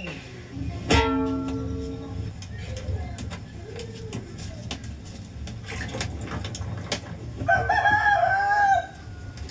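A rooster crows once, about seven and a half seconds in, for over a second; this is the loudest sound. Earlier, about a second in, a metal cooking pot clangs and rings for a moment, amid scattered clicks of pots being handled.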